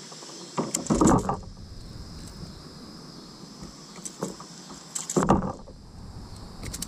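Knocks and rustling from handling a freshly caught smallmouth bass and unhooking a crankbait in a kayak, with two louder bursts about a second in and about five seconds in and a few light clicks, over a steady hiss.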